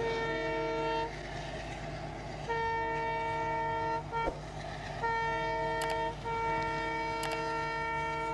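Indian Railways diesel locomotive horn sounding a chord of several notes in repeated blasts: one of about a second, a longer one, a brief toot, then two more, the last held on.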